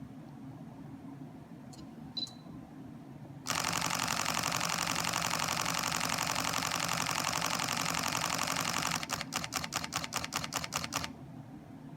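FUJIFILM X-T2 mirrorless camera's shutter firing a continuous burst: a few faint clicks and a short high beep come first. A loud, rapid machine-gun clatter starts a few seconds in and runs for about five seconds, then breaks into separate shutter clicks at about seven a second for two seconds before stopping.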